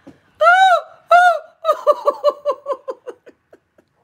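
A woman laughing hard: two loud, high-pitched whoops, then a run of quick ha-ha's, about five a second, that trail off and fade out.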